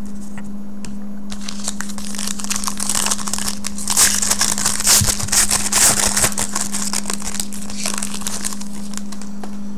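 Foil wrapper of a 2014 Topps Valor football card pack crinkling as it is opened by hand: dense crackling that builds about a second and a half in and is loudest in the middle.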